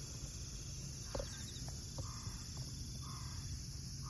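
Steady high-pitched singing of insects in the field, with a few faint short scrapes and taps of a wooden board pressed edge-first into soft, loose soil to cut a shallow seed furrow.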